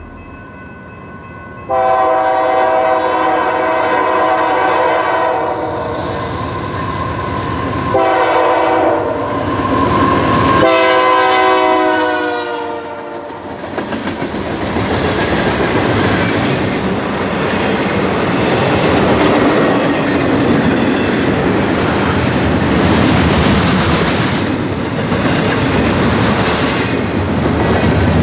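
Freight locomotive's multi-chime air horn sounding three blasts, a long, a short and a longer one that drops in pitch as the engine goes by. The train then passes close by, wheels rolling over rail joints in a steady clickety-clack.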